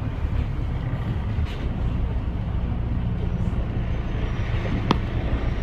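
Double-decker bus running, its engine and road noise heard as a steady low rumble from inside the cabin, with one short sharp click about five seconds in.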